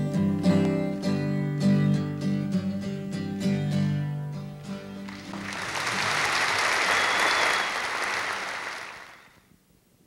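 Acoustic guitar playing the closing bars of a song. About halfway through, audience applause rises in its place and then fades away near the end.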